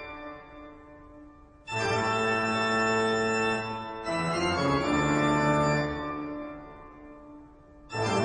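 Background organ music: sustained organ chords, each struck suddenly and left to fade, three of them in turn.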